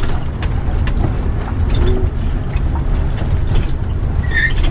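Inside the cab of a converted bus motorhome on the move: a steady low engine and road rumble, with constant clicking and rattling from the cabin.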